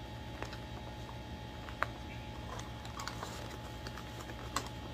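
A parcel being opened and its contents handled by hand: scattered light clicks and rustles, with a few sharper clicks, over a steady low background hum.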